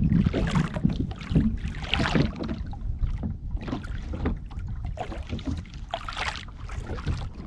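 A blanket being pulled up and tucked in close to the microphone, giving a run of irregular fabric rustles, over a steady low wind rumble.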